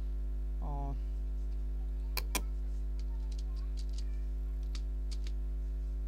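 Steady electrical mains hum picked up by the recording microphone. A short voiced hum comes a little under a second in, and two sharp clicks about two seconds in, followed by a few fainter clicks.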